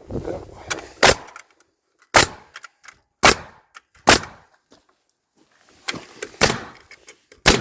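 Nails being driven into wood: six sharp strikes, roughly a second apart, with a longer pause before the last two.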